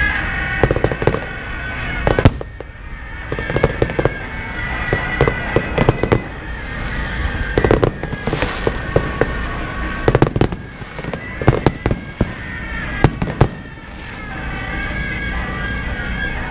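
Fireworks going off: irregular clusters of sharp bangs throughout, some in quick runs, over steady background music.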